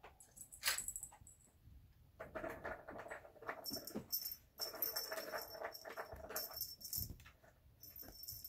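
Kitten playing with a wand toy on a shaggy rug: light scuffling and pattering of paws and toy, with several bursts of high jingling.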